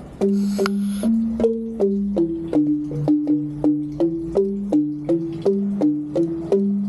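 Rindik, a Balinese bamboo xylophone, being played. Struck notes run at about three a second, a melody over a lower line.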